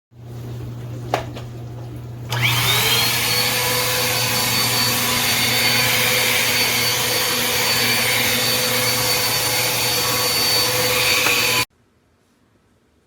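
Bissell CleanView Compact Turbo upright vacuum running, with a single click about a second in. About two seconds in it gets louder with a rising whine as the motor speeds up, then runs steadily until it cuts off suddenly near the end.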